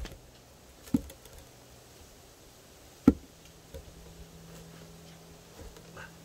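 A wooden log knocking against the logs it is being set on, twice, the second knock louder.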